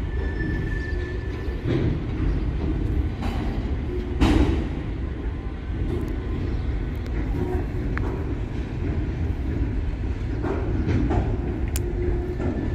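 Train of empty freight cars rolling by, a steady low rumble of wheels on rail broken by irregular clanks and knocks, the loudest about four seconds in.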